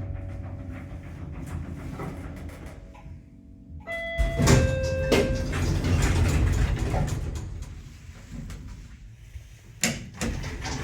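Becker passenger lift's sliding doors working, with a loud clunk about four seconds in followed by a few seconds of door movement, and a sharp click near the end.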